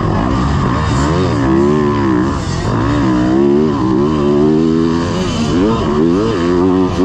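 Yamaha YZ250F four-stroke single-cylinder motocross engine, heard from on the bike, revving hard under throttle. Its pitch climbs and drops again about once a second as the rider works the throttle and gears around the dirt track.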